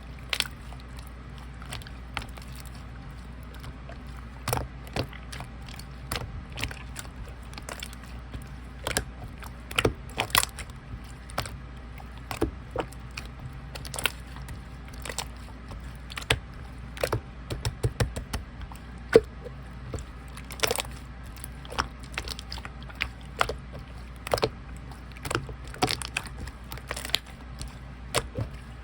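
Clear slime being squished and pressed by hand, making many irregular sticky clicks and pops.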